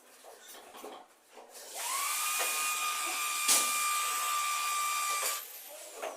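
Power drill running at speed for about three and a half seconds: it spins up quickly, holds a steady high whine with one sharp knock midway, then stops and winds down.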